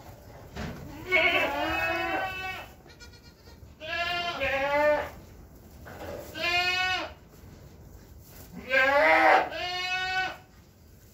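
Goats bleating repeatedly: four or five loud, wavering bleats, each up to about a second and a half long, coming every two to three seconds.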